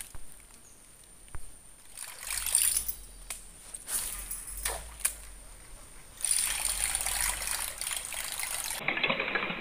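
Shallow swamp water splashing and trickling in uneven bursts, starting about two seconds in after a quiet start and settling into a steadier wash near the end.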